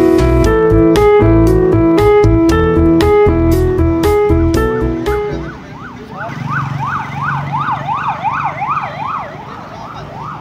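Music with piano-like keyboard notes in a steady rhythmic pattern fades out about halfway through. An ambulance siren then sounds in fast rising-and-falling yelp sweeps, about three a second.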